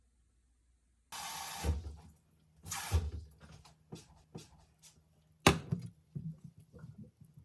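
Kitchen work sounds: two short bursts of rushing noise, then a string of clicks and knocks, the sharpest about five and a half seconds in.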